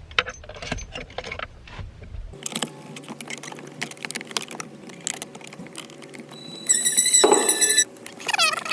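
Clinks, clicks and rattles of hand tools and metal parts being worked around the steering column while the steering wheel's nuts are undone. Near the end there is a louder high-pitched tone, lasting about a second.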